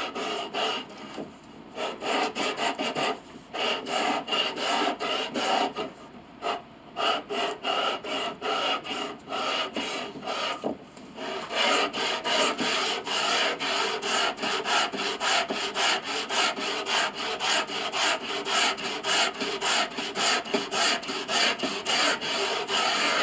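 A flat wooden block faced with heavy-duty sandpaper is pushed back and forth by hand over a new piano pinblock. The rasping strokes come about two a second, with a few short pauses. The sanding levels the pinblock's surface flat, so that the pieces glued onto it will sit without gaps or rocking.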